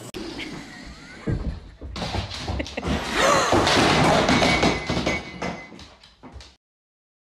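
A run of irregular thumps and knocks, loudest in the middle, thinning out and then cutting off suddenly near the end.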